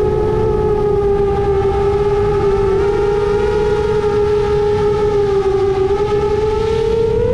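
A seven-inch FPV quadcopter's four brushless motors (Emax Eco II 2806.5 spinning HQ 7x3.5x3 tri-blade props) whine in fast cruising flight. The pitch holds fairly steady, dips a little and starts to rise near the end, over a rough rush of wind on the onboard microphone.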